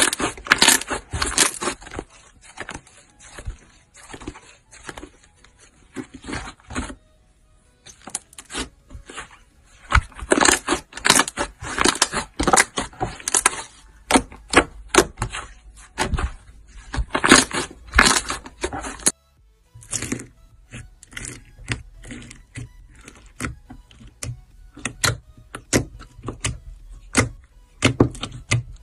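Thick slime being squeezed, kneaded and poked by hand: irregular runs of sticky clicks and crackles in clusters, with a couple of short quieter pauses.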